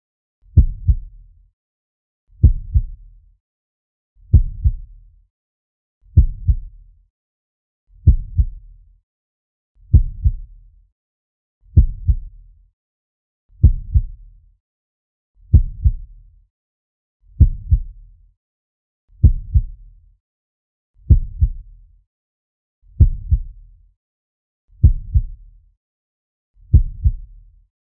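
Slow heartbeat sound effect: a low double thump, lub-dub, repeating steadily about every two seconds, with silence between beats.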